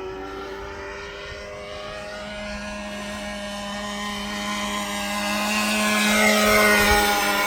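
RC model plane's motor and propeller whining in flight. It grows louder toward about six seconds in as it passes close, and its pitch falls as it goes by.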